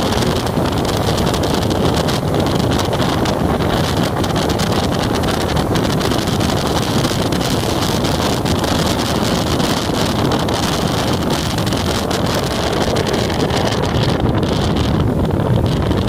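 Steady wind rush over the microphone of a motorcycle riding at speed, mixed with the motorcycle's engine and tyre noise.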